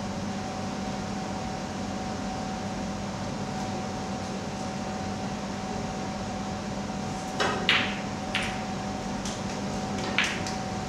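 A snooker shot: about seven seconds in, the cue strikes the cue ball and balls clack together sharply, followed by another click about half a second later and a third near the end. A steady background hum runs under it.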